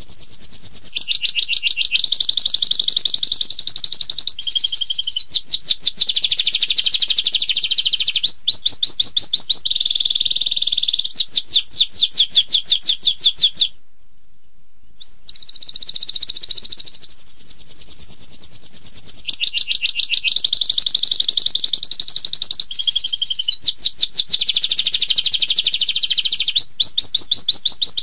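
Domestic canary singing a long song of fast rolling trills and rapid-fire runs of sweeping notes. It breaks off briefly just before halfway, then starts again.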